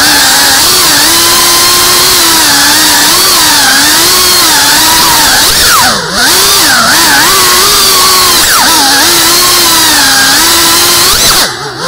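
FPV quadcopter motors whining, the pitch rising and falling with the throttle. The whine cuts back briefly about six seconds in and again near the end.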